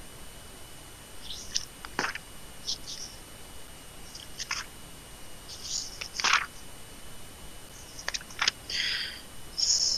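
Scattered short clicks and brief hissy rustles at irregular intervals, the loudest a sharp click about six seconds in, over a faint steady high whine; small handling noises on a call line.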